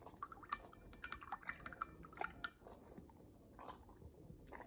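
Dog licking and smacking its lips after having its teeth brushed: a quick run of small wet clicks and smacks over the first couple of seconds, then a few scattered ones.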